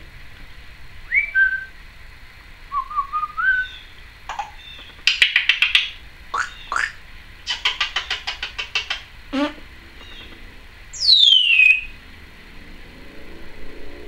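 Timneh African grey parrot whistling and mimicking: a few short whistled notes, then two quick runs of rapid clicks, and near the end a loud whistle sweeping down in pitch.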